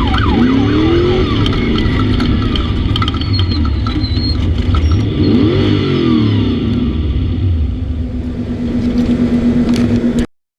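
Off-road race vehicle engines running and revving, the engine pitch sweeping up and back down twice. The sound cuts off suddenly near the end.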